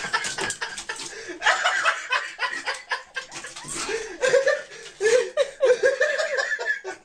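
People laughing and chuckling in repeated short bursts, over light knocks and rustling.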